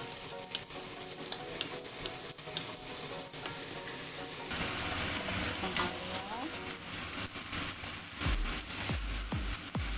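Chopped ginger, garlic and shallots frying in hot oil in a pan, a steady sizzle with small clicks as they are stirred; the sizzle grows louder about halfway. Faint background music underneath.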